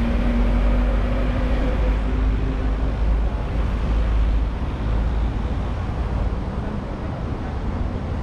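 Road traffic: a vehicle engine hums and rumbles low for the first few seconds, then fades. Under it runs a steady wash of passing traffic noise.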